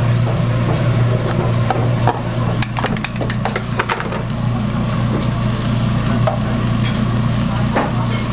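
Egg frying and sizzling in a hot pan, with a cluster of sharp clicks of a cooking utensil against the pan a few seconds in, over a steady low hum.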